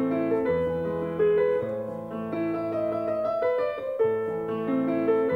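Instrumental intro music: a piano-like keyboard melody, its notes changing about every half second over held low notes.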